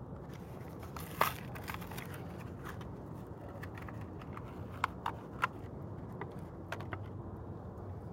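Plastic blister pack of a Hot Wheels car crinkling and crackling as it is pulled open, with scattered sharp clicks, over a steady low background rumble.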